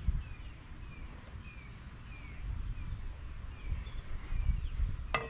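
A bird chirping over and over, about twice a second, over a low outdoor rumble. Near the end come two sharp metallic clinks with a short ring, as steel transmission parts are set down on the workbench.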